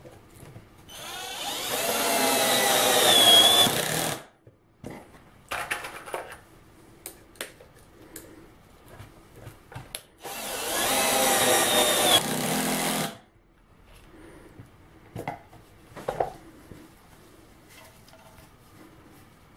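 Cordless drill driving pocket-hole screws into plywood through a long driver bit, in two runs of about three seconds each. Short knocks and clicks come between and after the runs.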